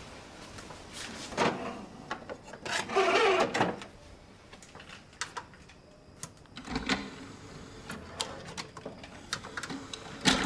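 Plastic DVD cases clicking and sliding against each other as they are handled and sorted in a pile, with a louder rustle about three seconds in and a sharp clack near the end.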